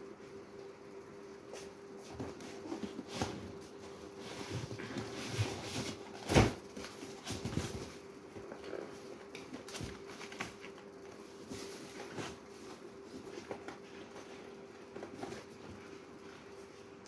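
Scattered knocks, clicks and rustles of cartons and stock being handled in a small stockroom, with one louder thump about six seconds in, over a steady low hum.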